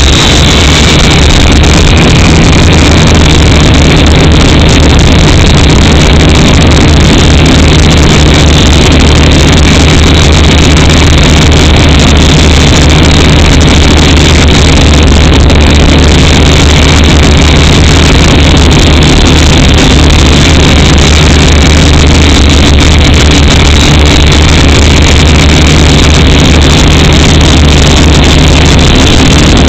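Small camera drone's motors and propellers running steadily in flight, recorded loud and close by its onboard camera: a steady high whine over a low hum.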